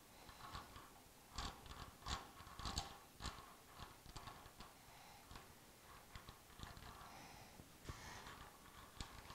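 Hurricane HTC125 four-jaw scroll chuck being turned by hand, its jaws sliding outward with faint, irregular metal clicks and scrapes.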